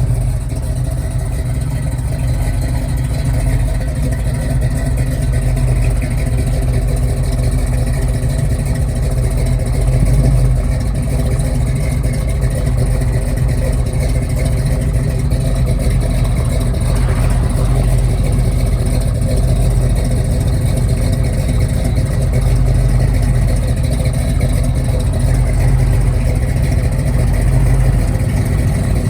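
A car engine idling with a steady, deep exhaust rumble, holding an even note throughout.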